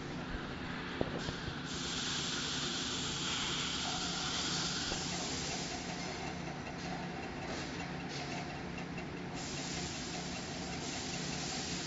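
Industrial sausage-cutting machine running: a steady mechanical hum with a high hiss that swells and eases, and a single sharp click about a second in.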